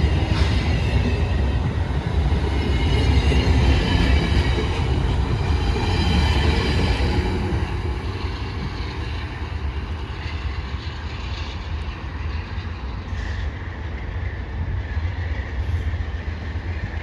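VIA Rail passenger train pulling out and rolling past with a steady rumble and squealing wheels. The squeal and loudness ease off after about eight seconds as the train moves away.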